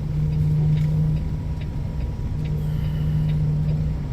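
Semi-truck diesel engine running at low speed, heard inside the cab, with a steady low hum that drops away for about a second in the middle and then returns. A light, regular ticking sounds throughout.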